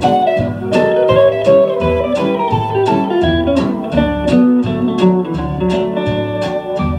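Instrumental break of a country song playing from a 45 rpm vinyl single: a steel guitar lead with gliding notes over a steady beat and bass, with no singing.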